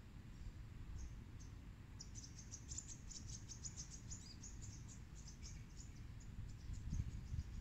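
Faint, rapid high-pitched chirping from a small animal, densest in the middle of the stretch and thinning out near the end, over a low steady rumble.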